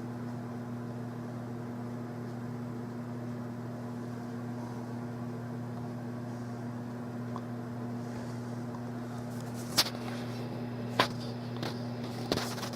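Steady low electrical hum, with a few light clicks in the last few seconds.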